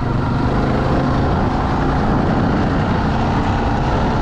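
Off-road bike engine running steadily as it is ridden along a trail.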